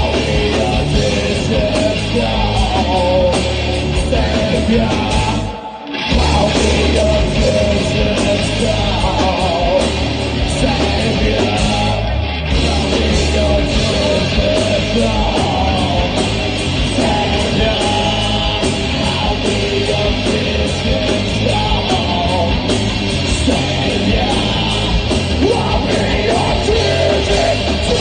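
Rock band playing live, with loud electric guitars, bass and drums. The band stops briefly about six seconds in, then crashes back in.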